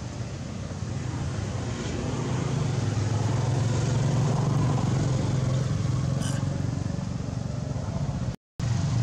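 A motor vehicle's engine runs with a low, steady hum, growing louder over the first few seconds and then holding. The sound cuts out for a moment near the end.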